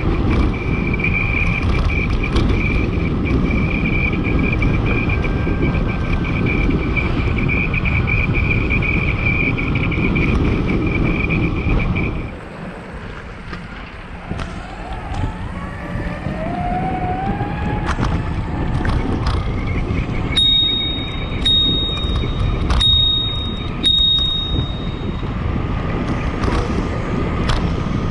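Wind buffeting the microphone and road rumble while riding an electric BMX bike, with a steady high whine for the first twelve seconds. The noise then drops, a rising whine follows, and about five short high beeps sound roughly a second apart before the wind noise builds again.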